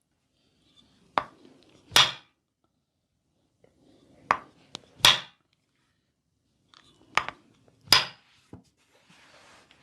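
Sharp percussive cracks from hands-on massage and chiropractic work, in three pairs a little under a second apart, each pair about three seconds after the last. A faint rustle near the end.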